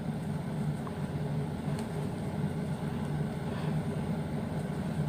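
Steady low background hum, with a couple of faint small clicks.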